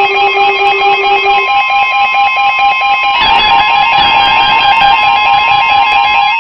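RadioShack 12-262 weather radio sounding its alert for an incoming warning: an electronic alarm of rapid beeps, about five a second, stepping across several pitches. A steady alert tone comes in about a second and a half in, and the sound turns harsher and fuller about halfway through.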